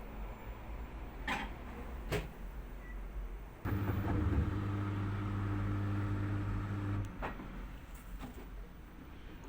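Appliance drum with a fault: two sharp clicks, then its motor hums steadily for about three and a half seconds with a knock in the run, and stops with a further click.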